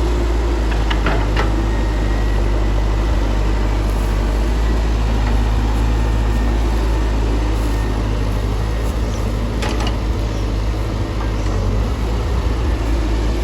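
Excavator engine running steadily with a deep low hum, with a few brief knocks about a second in and again near ten seconds in.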